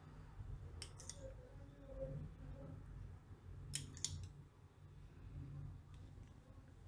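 Light clinks of a steel spoon against a glass oil bowl and plate while groundnut oil is spooned out, coming as two pairs of short clicks, about a second in and about four seconds in, over a faint low hum.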